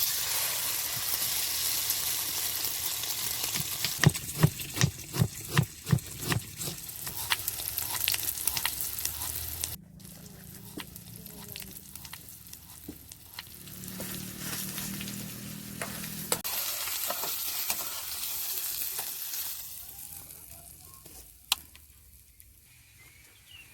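Food sizzling in a frying pan, with a quick run of sharp knocks of a utensil against the pan about four to six seconds in. The sizzle drops suddenly to a quieter level about ten seconds in and fades toward the end.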